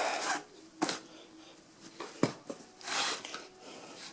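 Cloth shirts being handled and shifted: several short rustles with a few soft knocks in between.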